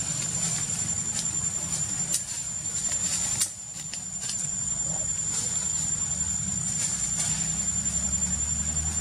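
Steady high-pitched insect drone, cricket- or cicada-like, over a low background hum, with scattered faint ticks.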